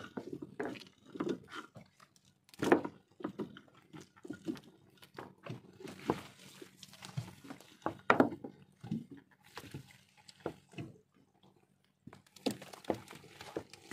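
Wet fishing net being hauled in hand over hand over a wooden boat's side and dropped on the deck: irregular rustling, dripping and knocks, with two louder knocks about three seconds and eight seconds in and a brief pause near the end.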